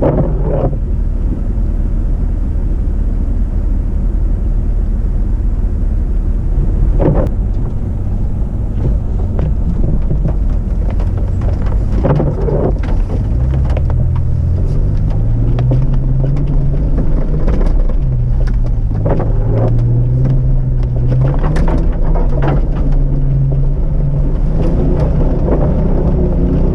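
Off-road 4x4 engine running under load, with a low rumble and scattered knocks throughout; from about halfway in its revs rise and fall repeatedly as it is driven through mud.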